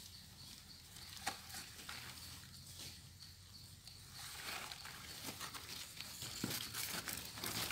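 Rustling of leaves and undergrowth, with scattered small snaps and clicks, as mushrooms are picked by hand from the forest floor. The rustling gets denser and louder about halfway through.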